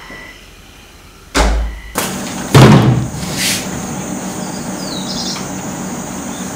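A door being shut: a heavy thump about a second and a half in, then a louder bang about a second later, followed by steady low room hum.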